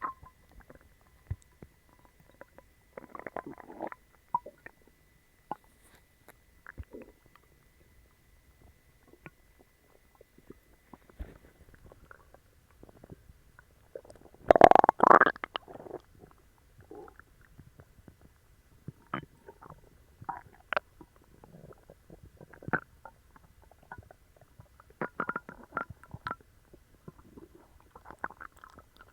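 A human stomach and intestines growling and gurgling, the sign of an upset stomach after eating dog treats. Scattered soft gurgles and clicks run throughout, with one loud rising gurgle about halfway through.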